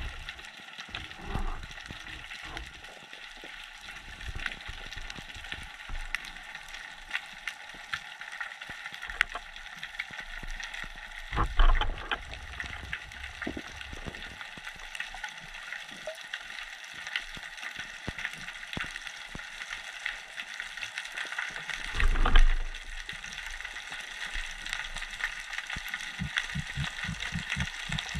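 Underwater ambience picked up by a camera on a speargun: a constant fine crackle of clicks. Two louder low thumps come about 11 and 22 seconds in, and a run of soft low pulses comes near the end.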